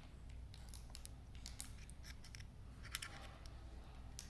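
Faint, scattered metallic clicks and scrapes of a small Allen key working against the pins of a Ruger 10/22's receiver, pressing to push out the trigger-group pins.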